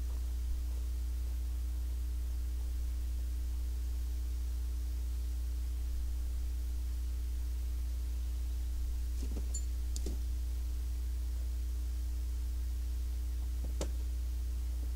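A steady low hum with a faint higher steady tone, broken only by a few faint clicks.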